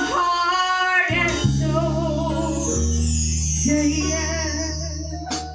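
Youth gospel choir singing a held, wavering note over sustained low keyboard chords, with a drum-kit cymbal struck and left ringing. The music fades toward the end.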